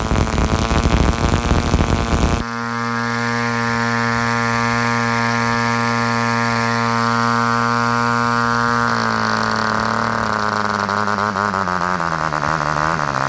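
BollAero 18 1.8 cc piston-ported model diesel engine with a propeller. It runs with a rough, ragged sound for the first two seconds, then settles into a steady, even buzz. From about nine seconds in its pitch falls steadily as it slows, as the fuel line is pinched off to stop it.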